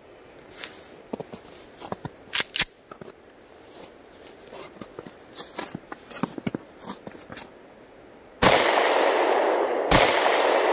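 Quiet with scattered light clicks and knocks, then about eight seconds in a loud steady rushing noise starts suddenly. Near the end a Taurus G3C 9 mm pistol fires one sharp shot.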